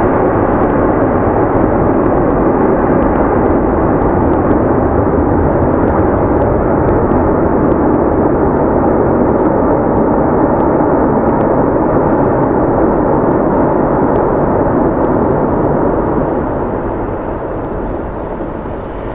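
Airbus A380's Rolls-Royce Trent 900 engines in reverse thrust during the landing rollout: a loud, steady jet noise that dies away gradually over the last few seconds as the airliner slows.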